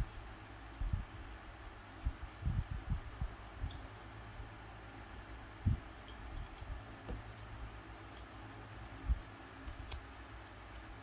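Hands working a small plastic model kit at a desk: scattered soft knocks and a few faint clicks of plastic parts and tools being handled, the loudest knock about nine seconds in, over a steady low hum.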